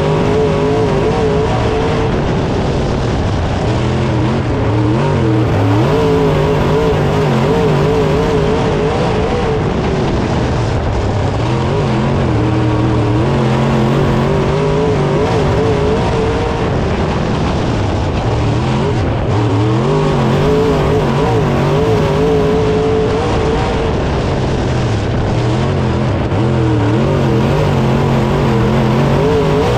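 Dirt late model race car's V8 engine at racing speed, heard from inside the car: the engine note climbs on the straights and drops off into the turns every few seconds, over a steady rush of noise.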